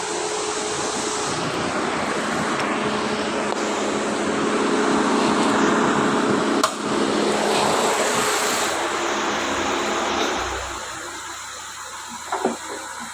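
Steady motor-vehicle running noise that swells and then fades about three-quarters of the way through. A single sharp click sounds about two-thirds of the way in, and a few light knocks come near the end.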